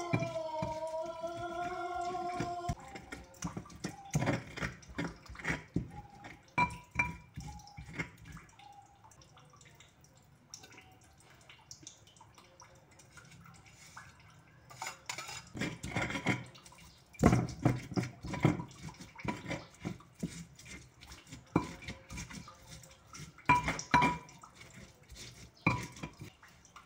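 Stone pestle knocking and grinding against a stone mortar (Indonesian cobek and ulekan) as chilies, tomatoes and fried anchovies are crushed into sambal: irregular knocks and scrapes, quieter in the middle and heavier in clusters later on. In the first couple of seconds a drawn-out pitched sound fades out.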